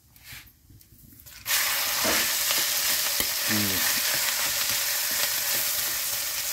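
Cooked rice hits hot mustard oil in an iron kadai and starts sizzling loudly and suddenly about a second and a half in. It keeps frying steadily while a metal spatula stirs and scrapes it around the pan.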